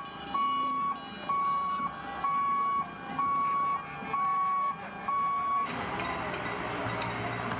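Electronic warning beeper giving seven steady single-pitched beeps, about one a second, then cutting off as a steady rushing noise takes over about two-thirds of the way through.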